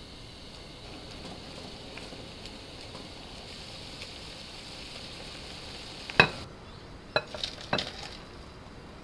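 Noodles, bean sprouts and sauce bubbling and sizzling in a frying pan while being stirred with tongs. About six seconds in the bubbling cuts off, with a sharp clack and then a few lighter knocks as the pan is tipped against a ceramic bowl to pour the noodles in.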